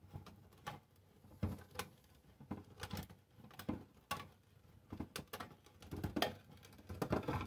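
Handheld smooth-edge manual can opener being cranked around the rim of a tin can: an uneven run of short clicks and scrapes, a few a second, as the cutting wheel works round the lid.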